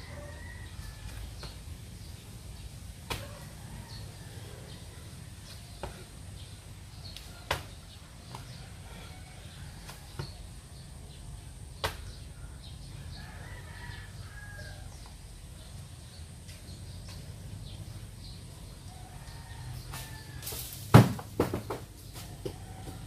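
Scattered sharp knocks a few seconds apart, then a quick cluster of louder knocks near the end, over a low steady hum. Faint bird chirps come and go.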